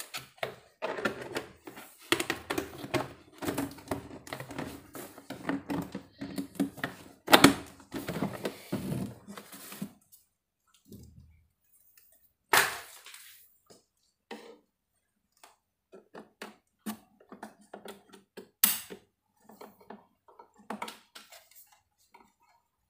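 Handling noises as a network cable is fetched and plugged in. Dense clattering and rustling run for about ten seconds, then come scattered clicks and knocks, two of them louder.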